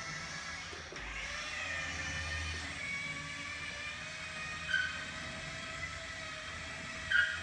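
Motorised tea trolley running with a wavering motor whine, and short squeaks from its makeshift caster wheel twice, about two-thirds of the way through and near the end. The caster wheel is not turning smoothly, and this is upsetting the trolley's steering.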